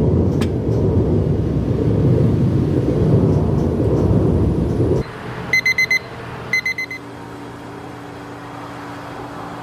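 An electric coffee-making appliance runs with a loud low rumble that cuts off suddenly about five seconds in. Then come two quick runs of electronic beeps, about a second apart.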